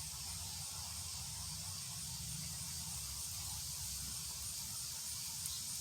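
Steady hiss, brightest high up, over a low rumble, with no pitch or rhythm.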